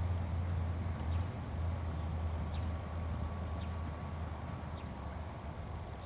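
Steady low outdoor background hum, with a few faint, short bird chirps scattered through it.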